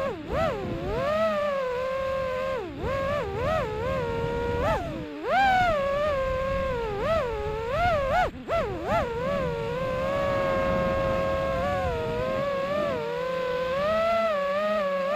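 FPV quadcopter motors whining, the pitch swooping up and down again and again as the throttle is worked, over a rushing noise.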